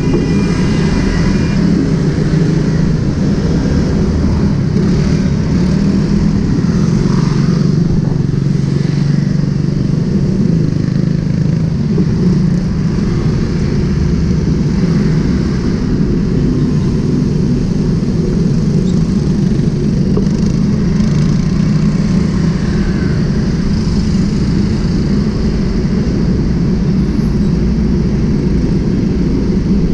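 Motorcycle engine running steadily while riding in traffic, with road and wind noise and other cars and motorcycles passing close by.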